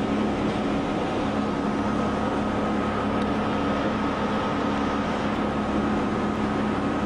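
Steady running noise of an elevated subway train heard from inside the car, with a constant low hum and a thin high whine.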